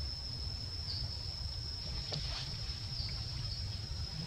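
A steady high-pitched insect drone that dips briefly every second or so, over a continuous low rumble, with a faint click about two seconds in.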